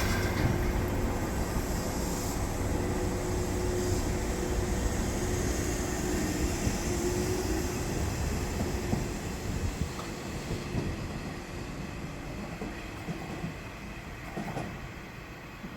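Nishitetsu electric train running along the rails, with steady wheel-on-rail rumble, a low humming tone and a few clicks from the rail joints, fading slowly as it moves away.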